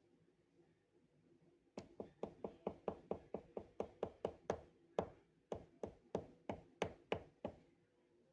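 A fast run of knocks, about four a second, starting about two seconds in and stopping near the end, each knock with a short ring.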